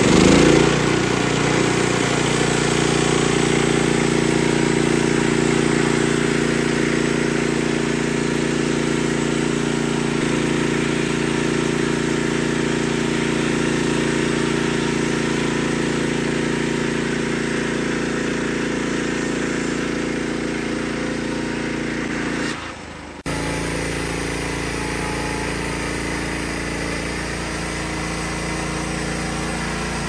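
Norwood LM30 portable bandsaw mill running steadily, its gasoline engine under load as the band blade saws through eastern red cedar. About three-quarters of the way through there is a brief break, after which it carries on slightly quieter.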